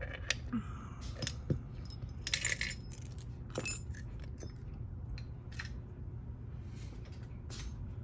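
Small metal clicks and clinks from a just-opened lock cylinder and lock-picking tools being handled, coming irregularly with a few brighter clinks, over a steady low hum.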